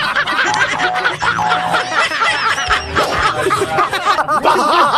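Several men laughing loudly and continuously: a meme laughter clip.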